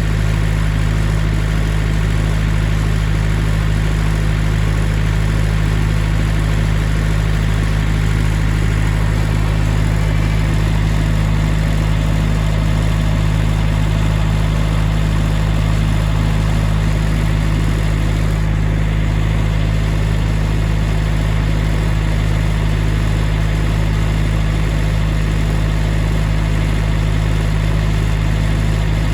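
Sawmill engine running steadily at a constant speed, with a deep, even hum and no change in load.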